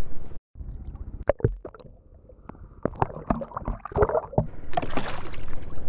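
Muffled underwater gurgling and scattered knocks heard through a submerged action camera as a sculpin is released, then a short burst of splashing near the end.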